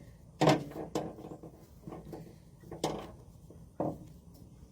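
Metal ratchet and hook of a ratchet strap clacking and clattering as the strap is handled, about four sharp knocks, the loudest about half a second in.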